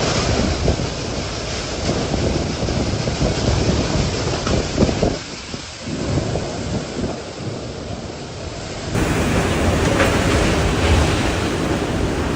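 Typhoon wind gusting and rushing, buffeting the microphone in surges. It grows louder about nine seconds in.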